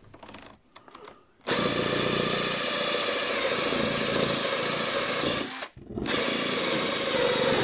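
Electric drill with a hole saw cutting through a panel for the radiator hoses. It starts about a second and a half in and runs steadily, stops for a moment near the end, then starts again.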